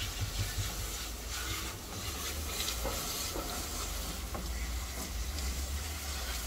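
Hand-held spray nozzle of a self-service dog-wash tub running soapy water onto a wet dog's coat: a steady hiss of spray, with a low steady rumble underneath.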